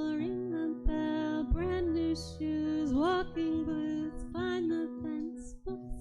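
A woman singing a slow, gentle song over a steady instrumental accompaniment, with long held notes that bend in pitch.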